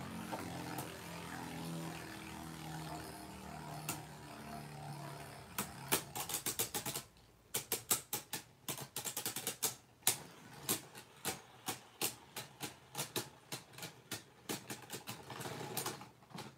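Two Beyblade Burst tops spinning in a plastic stadium, with a faint low whir at first. From about five seconds in come many rapid, irregular clicks and clacks as the tops collide.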